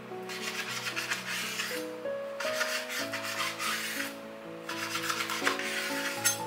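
Chef's knife sawing back and forth through thin slices of raw beef and rasping against the cutting board, in three bouts of quick strokes, with background music.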